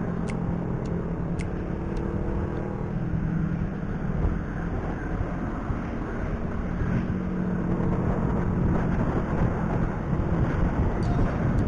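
Motorcycle engine running at a steady cruising speed on the road, its pitch drifting only slightly, with a few light clicks in the first couple of seconds.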